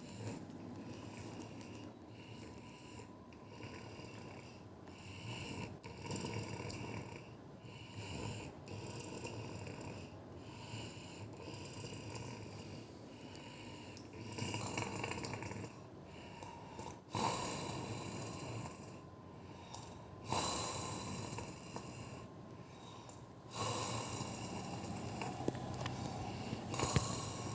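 An elderly woman snoring very loudly in deep sleep, a rough snore on each breath every couple of seconds. The snores grow longer and stronger about halfway through.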